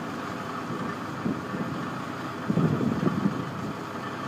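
Yard tractor's engine running steadily at a fast idle while it drives the end dump trailer's hydraulic hoist, which holds the steel box tipped high. Gusts of wind buffet the microphone briefly about a second in and again past the halfway point.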